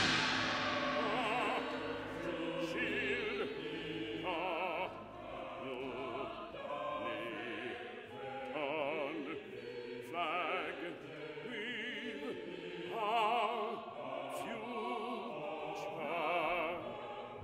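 Baritone soloist singing short accented held notes with a wide vibrato over sustained chords from a chamber choir. Low contrabassoon notes sound underneath at the start.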